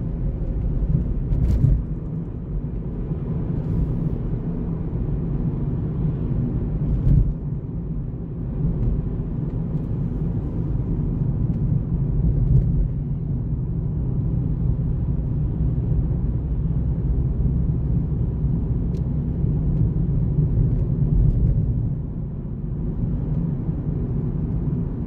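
Steady low rumble of a car's engine and tyres heard from inside the cabin as it creeps along in slow traffic, with a couple of faint knocks.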